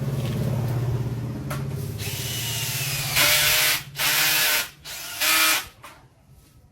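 DeWalt 26V cordless hammer drill driving a screw: the motor runs steadily, then gives three loud bursts as the screw bites tight and the hammer action kicks in to press it home.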